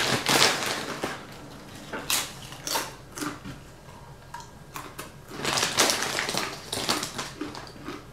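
A plastic bag of tortilla chips crinkling as a hand reaches in, and chips crunching as they are chewed, in irregular crackles and crunches.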